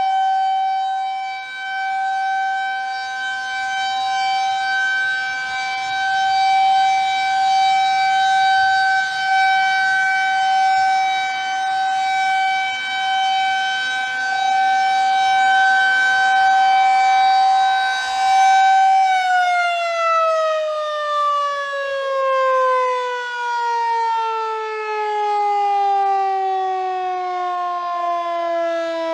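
Federal Signal 2001 rotating outdoor warning siren sounding a test: a loud single steady tone that swells and fades in loudness. About 19 seconds in, the pitch begins to fall steadily as the siren winds down.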